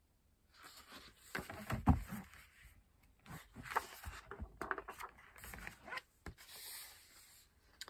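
A paperback picture book being handled and its pages turned: irregular paper rustling and rubbing with a few soft knocks, the loudest about two seconds in.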